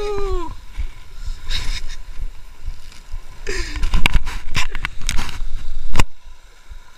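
Sea surf washing against shore rocks, with wind buffeting the microphone. From about three and a half seconds in, the camera rubs and knocks as it is handled against clothing, ending in one sharp knock about six seconds in.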